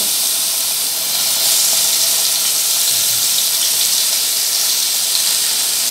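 Whole climbing perch (koi fish) frying in hot oil in a kadai: a loud, steady sizzle that grows a little about a second and a half in.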